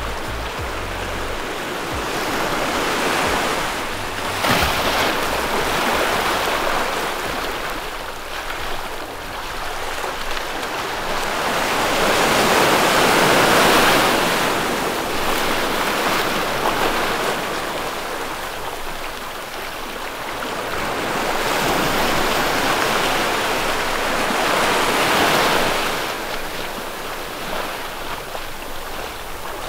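Sea waves breaking and washing up on a beach. The rush swells and falls back about every ten seconds.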